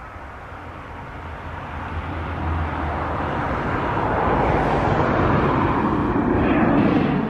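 Twin-turboprop airliner passing low overhead with its landing gear down. The engine and propeller noise grows steadily louder, with a low steady hum underneath, and is loudest near the end.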